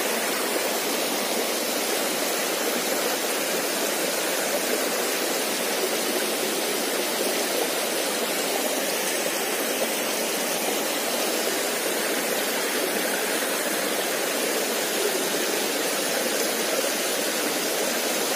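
A small stream rushing steadily over a shallow rocky cascade into a pool.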